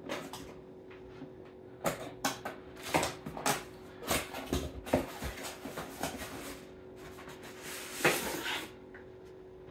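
Hard plastic parts of a power station being handled: a series of sharp clicks and knocks through the first half, then a longer rattling clatter a little after eight seconds. A faint steady hum runs underneath.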